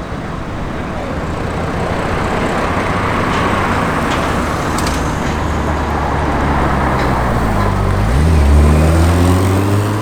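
A car's engine accelerating past: road and tyre noise swells, then the engine note grows and climbs in pitch, loudest near the end. The car is taken to be a Ferrari F80 prototype with a hybrid V6.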